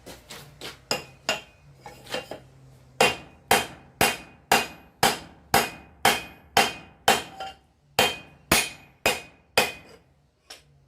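Hand hammer striking hot steel bar on an anvil, each blow ringing: a few lighter taps, then a steady run of heavy blows about two a second. The steel is being drawn out into a knife preform and is moving only slowly under the hammer.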